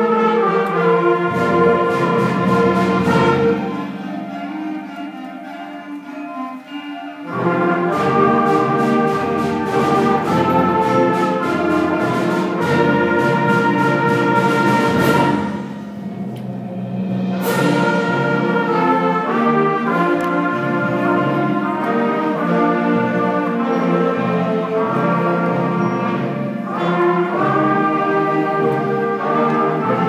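A youth concert band of flutes, trumpets and other winds and brass playing a Christmas arrangement in full sustained chords. The music eases to a softer passage about four to seven seconds in, then comes back in full.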